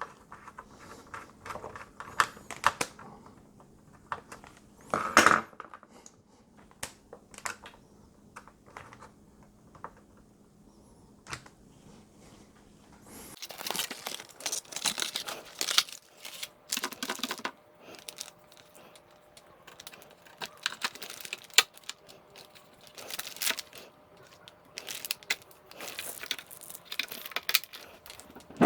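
Hands handling computer parts and their packaging: intermittent crinkling and rustling with small clicks and taps, busier in the second half.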